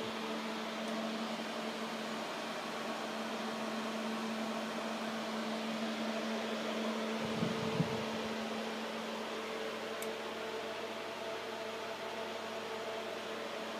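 Cooling fans of an argon-ion laser power supply running steadily, a whir with a steady hum. A brief low rumble about halfway through.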